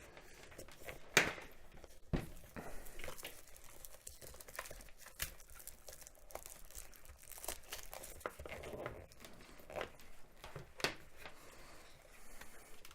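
Hands handling and feeding headset wires along the inside of a helmet: irregular rustling with scattered clicks, the sharpest click about a second in.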